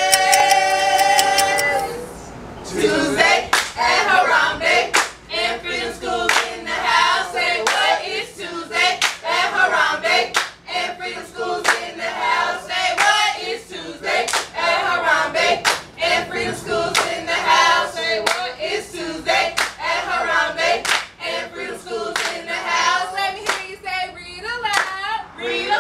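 A group of men and women singing a chant together in unison, clapping their hands on a steady beat of about two claps a second. It opens on a long held note that breaks off about two seconds in before the clapped chant starts.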